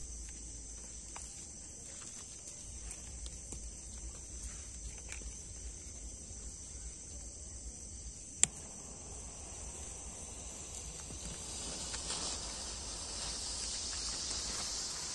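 Crickets chirping steadily. A gas lighter gives one sharp click about eight seconds in, then a hiss starts and builds as a row of colour smoke crackers catch and begin spewing smoke.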